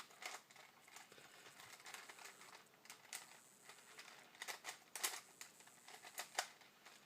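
4x4 Rubik's cube being turned by hand: faint, irregular plastic clicks and clacks as the layers turn, with a few sharper clacks near the end.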